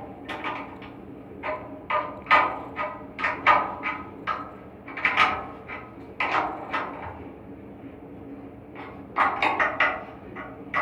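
Irregular metal clanks and knocks, several in quick clusters, from tools and parts being handled, over a steady low machine hum.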